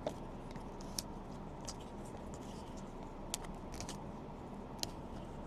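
Trading cards being handled and flipped, faint scattered clicks and light slides of card stock over a low steady room hum.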